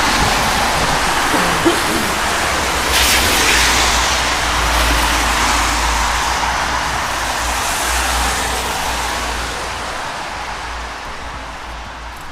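Road traffic on a wet road: tyre hiss and engine rumble from passing cars. It swells about three seconds in and again later, then fades near the end.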